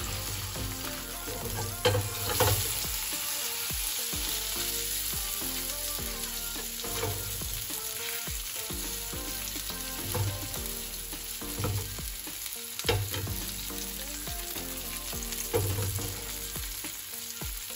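Whole marinated fish shallow-frying in sunflower oil in a frying pan: a steady sizzle, with a slotted spatula scraping and knocking against the pan now and then as the fish is turned.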